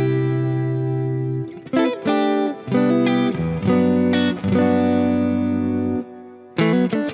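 Sterling by Music Man Cutlass CT50 Plus electric guitar playing long held notes and chords through effects over a backing track. The playing drops away briefly about six seconds in, then starts again.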